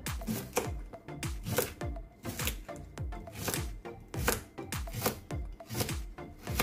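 Knife slicing through a cucumber onto a wooden cutting board, repeated cuts, over background music with a steady beat.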